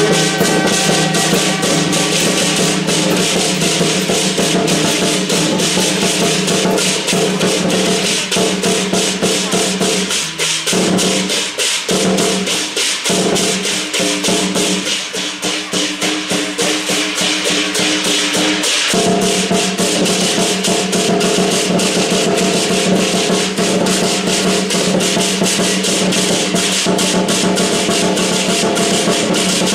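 Lion dance percussion: a large barrel drum beaten in a fast, dense rhythm with hand cymbals clashing along, over steady ringing tones. The drumming lightens for several seconds in the middle, then comes back full.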